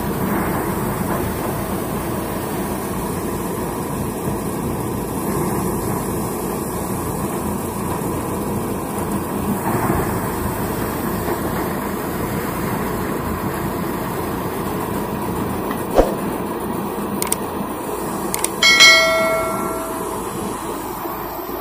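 Tractor-driven paddy thresher running steadily while rice sheaves are fed into its drum, a continuous mechanical drone of the threshing drum and the Swaraj tractor's engine. A single sharp click comes about 16 seconds in, and a short bell-like chime sounds near the end.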